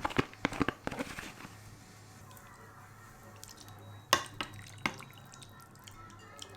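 Kitchen sounds: a quick run of clinks and taps from dishes and utensils, then a soft steady trickle of water with a few sharp drips or taps.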